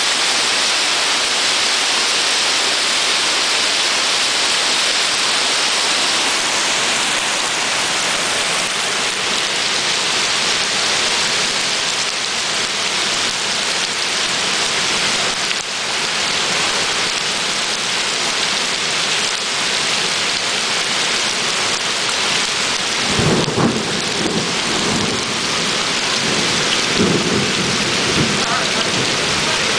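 Torrential rain pouring steadily onto paving and standing floodwater. Near the end a low, rolling rumble of thunder comes in for several seconds.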